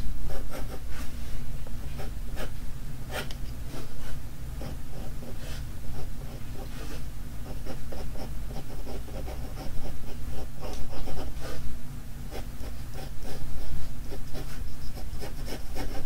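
2H graphite pencil scratching across drawing paper in many short, quick sketching strokes.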